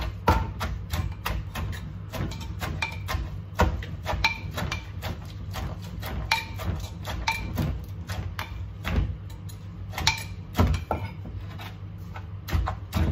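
Wooden pestle pounding green papaya salad in a large clay mortar: repeated dull knocks a few times a second. A metal spoon clinks against the mortar as the salad is turned between strokes.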